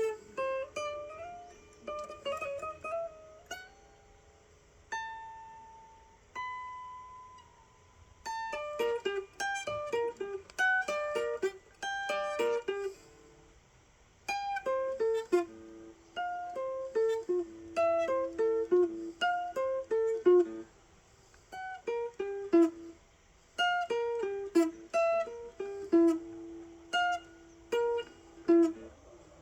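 Solo guitar playing a picked single-note melody, with two long ringing notes about five to seven seconds in, then quicker phrases that keep returning to a low note.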